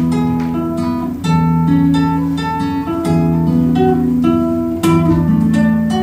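Acoustic classical guitar strummed in a steady rhythm under a harmonica playing a slow melody of long, steady held notes.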